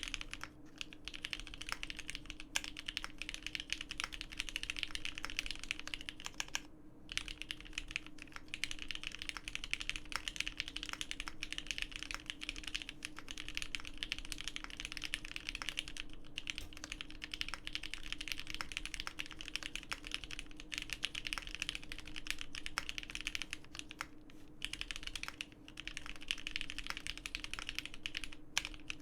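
Continuous typing on a GEON F1-8K mechanical keyboard with lubed vintage Cherry Black linear switches on 69 g springs, an FR4 gasket-mounted plate and G81-3100SAV keycaps: a fast run of keystroke clacks broken by a few brief pauses.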